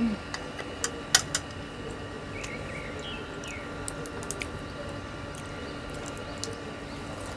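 Mouth sounds of someone eating raw oysters: soft wet squishing and chewing, with scattered sharp clicks, most of them in the first second and a half.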